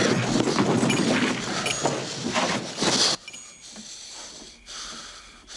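Loud scuffle as a man is wrestled down onto a wooden bar: thick commotion full of knocks, which cuts off about three seconds in to a much quieter stretch with faint breathing and rustling.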